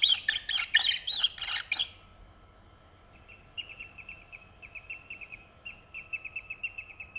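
Rat squeaking. A quick run of about eight loud, high squeaks in the first two seconds, then after a short pause a faster, quieter string of short squeaks, about four or five a second.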